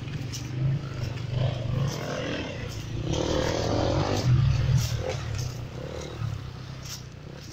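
Enduro motorcycle engines revving on a forest track, the note rising and falling, loudest about three to five seconds in as a bike passes close.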